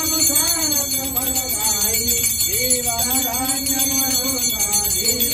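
Devotional singing with long, slowly gliding held notes, over a small bell rung steadily throughout, as in a Hindu puja or aarti.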